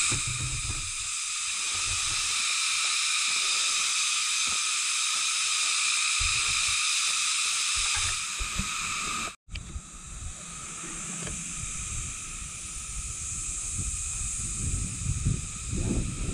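A steady high-pitched hiss with irregular low rumble underneath. Just past halfway the sound drops out for an instant, then the hiss carries on more faintly while the low rumble grows louder near the end.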